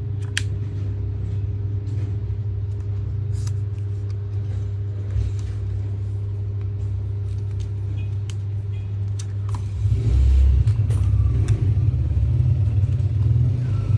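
A steady low rumble with a constant hum under it, swelling louder and more uneven about ten seconds in, with a few faint light clicks.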